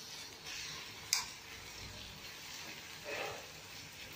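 Wooden spatula stirring chopped tomatoes and onions in a kadai: soft scraping strokes, with one sharp tap of the spatula against the pan about a second in.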